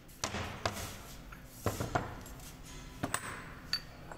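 Sharp metallic knocks and clinks, mostly in close pairs, as aluminium tractor hydraulic pump housings and parts are handled and knocked on a wooden workbench during assembly.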